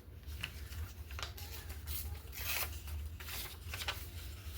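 Paper scraps being handled and worked by hand: a series of short, crisp paper sounds, the longest about two and a half seconds in.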